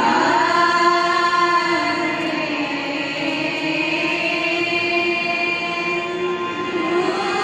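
A large choir singing Sikh devotional kirtan in unison, drawing out long held notes, with harmoniums accompanying.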